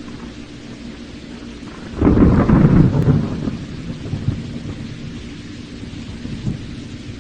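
Rain falling steadily, with a loud thunderclap about two seconds in that rumbles and fades away over several seconds.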